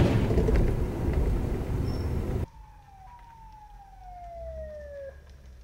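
A loud rushing noise that cuts off abruptly after about two and a half seconds. Then, quieter, an emergency vehicle's siren wails steadily down in pitch and stops abruptly about five seconds in.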